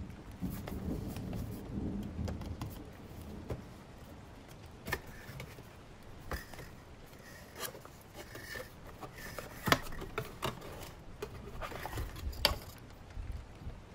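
Rain ambience with a low thunder rumble dying away in the first few seconds. After that come scattered sharp clicks and short scratchy rustles of paper and stationery being handled, the loudest near the middle and again later.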